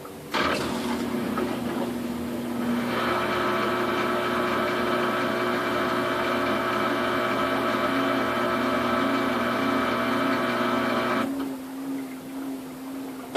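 Samsung washing machine running in its spin cycle with a load of duvets, its motor giving a steady whine. The sound starts abruptly and the whine stops sharply about eleven seconds in.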